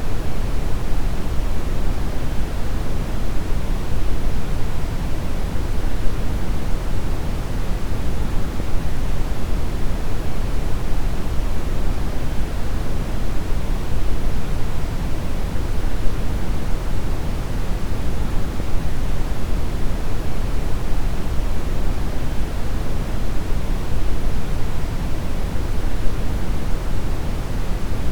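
Synthetic deep brown noise: a steady, even rumbling hiss weighted heavily toward the bass, with no changes or events.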